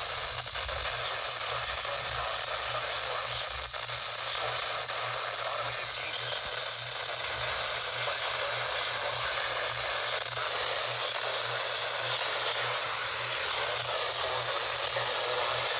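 Radio receiver static: a steady, even hiss from a weak or empty station, with a faint steady whistle for the first ten seconds and a faint low pulsing under it.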